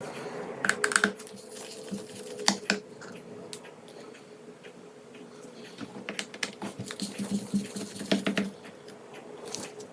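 A precision screwdriver loosening the small screws of a laptop's bottom cover: irregular light clicks and ticks of the bit turning in the screw heads and of the screws being handled. The clicks are busiest about a second in and again around seven to eight seconds in, over a faint steady hum.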